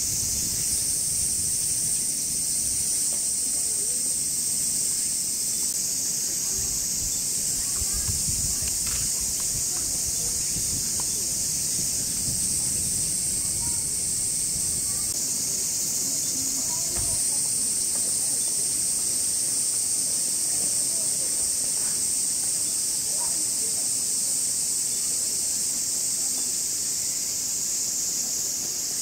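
Cicada chorus: a steady high-pitched shrill hiss whose top layer swells and drops back several times.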